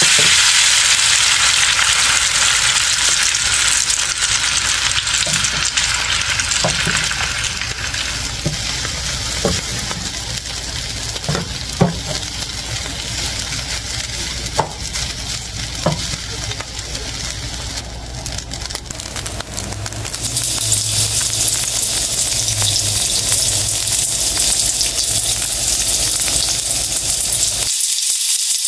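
Fried rice sizzling in a nonstick pan as it is stirred and turned with a wooden spatula, with a few sharp knocks of the spatula against the pan. The sizzle eases in the middle and grows louder again about two-thirds of the way through.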